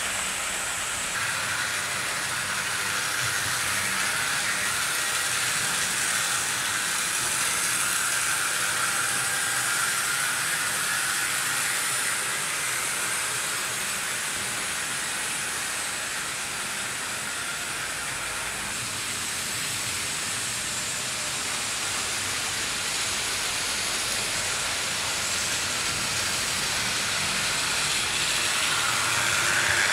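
Several 00 gauge model trains running around a layout: a steady whirring hiss of small electric motors and wheels rolling on track. It grows louder near the end as a train passes close by.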